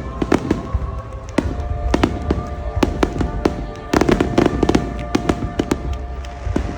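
Fireworks display: a rapid, irregular string of sharp bangs and crackles over a low rumble, with music playing underneath. The bangs crowd together and get louder about four seconds in.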